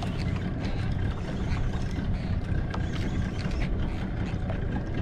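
Steady low rumble and hiss of an outrigger fishing boat at sea, wind and water around the hull, with faint scattered ticks.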